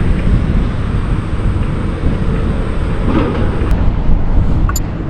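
Kawasaki Ninja ZX-6R inline-four running through an Akrapovic exhaust while riding, a loud, steady low rumble mixed with wind buffeting on the microphone.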